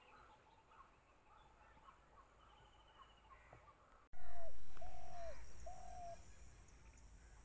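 Birds calling: faint chirps and short trills, then about four seconds in a louder recording with three short hooting calls, a steady high-pitched whine and a low rumble that fades away.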